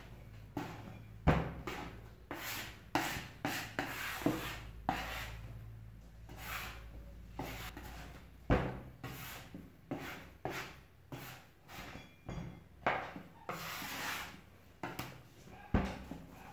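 Hands kneading a large ball of bread dough on a floured table: repeated rubbing, pushing strokes, about one or two a second, with an occasional sharper thud as the dough is pressed down or turned.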